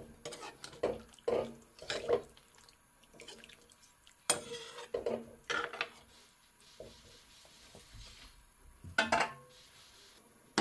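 Metal ladle knocking and scraping against a metal kadhai while stirring a chicken curry: a string of short clinks, a louder group about four to six seconds in, then a pause and another clink near the end.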